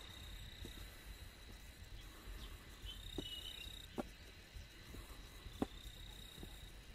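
Insects singing steadily at one high pitch, with a few footsteps knocking on the stone steps of a trail. The loudest step comes near the end.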